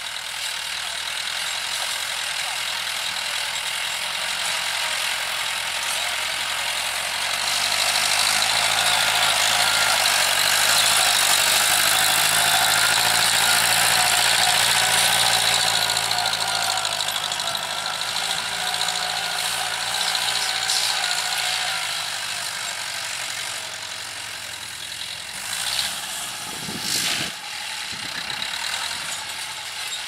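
TAFE 5900 DI tractor's diesel engine running steadily under load while it pulls a tine cultivator through the soil. It gets louder for a while in the middle as the tractor comes close, and there are two short knocks near the end.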